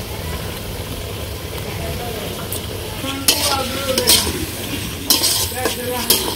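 Vegetables sizzling as they are sautéed in a cooking pan, with a metal spatula scraping and clinking against the pan in several strokes from about three seconds in.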